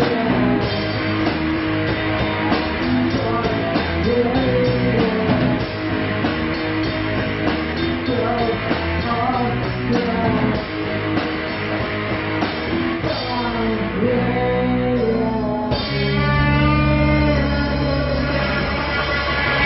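Live rock band of electric guitar, bass guitar and drum kit playing a song. The steady drum beat stops about thirteen seconds in, and long held chords ring on toward the end.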